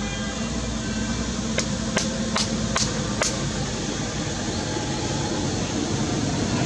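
Steady background hum with five sharp clicks, about two or three a second, between about one and a half and three and a half seconds in.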